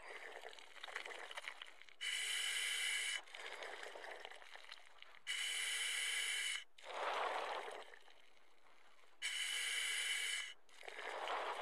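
A scuba diver breathing through a regulator: three hissing inhalations a few seconds apart, with a lower rush of exhaled bubbles after the second and third.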